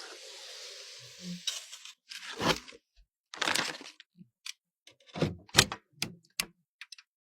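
A hiss for about a second and a half, then a string of sharp clicks and snaps with short crackling, rustling bursts, the loudest snap near the end.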